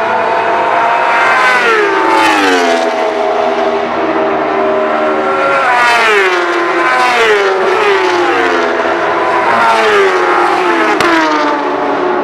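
Superstock racing motorcycles running at high revs past the track side, several in succession. The engine note drops in pitch sharply and repeatedly as the bikes go by.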